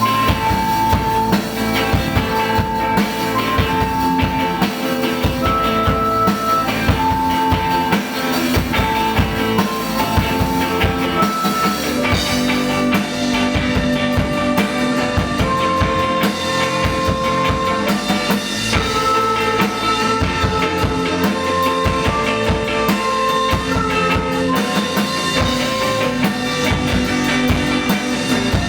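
Live rock band playing an instrumental passage: drum kit keeping a busy beat under a lead melody of held notes. The arrangement shifts about twelve seconds in, the top end thinning and the melody moving higher.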